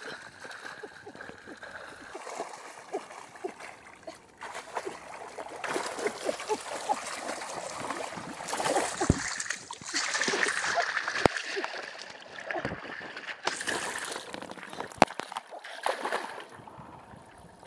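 Water splashing and sloshing in a run of many small irregular splashes, loudest in two stretches about halfway through.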